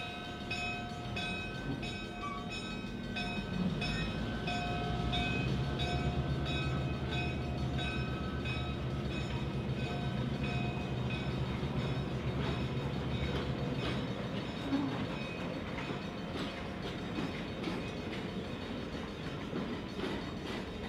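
Santa Cruz Big Trees and Pacific passenger train rolling slowly past at street level: wheels clicking over the rail joints. A repeating ringing runs through the first half, over a steady low engine drone that fades out after about fourteen seconds.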